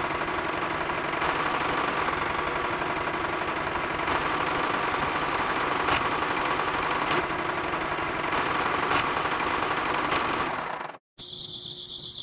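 Motor of a homemade miniature toy tractor running as it drives along, a steady rapid rattling buzz. It cuts off suddenly about eleven seconds in, and a steady high electronic tone of background music follows.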